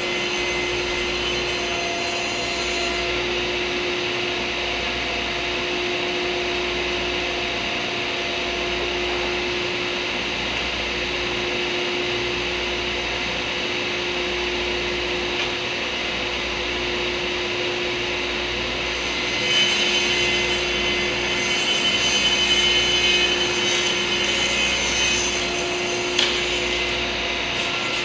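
Table saw running steadily with a constant hum. About twenty seconds in the blade cuts through a hardwood cutting board blank, which makes it louder with a hissing edge for several seconds, and there is a sharp click shortly after.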